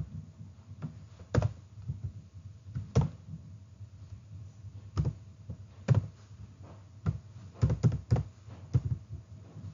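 Computer keyboard and mouse clicking in separate taps at uneven spacing, a second or two apart, with a quick cluster near the end, as code is copied and pasted.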